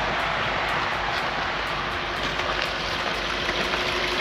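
Freshly installed Subaru FA20 flat-four engine idling steadily, with a faint steady whine joining near the end.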